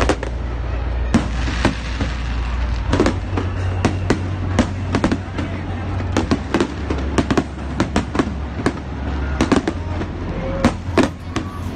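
Fireworks display: aerial shells bursting in a rapid run of sharp bangs and crackles, several a second, over a steady low rumble.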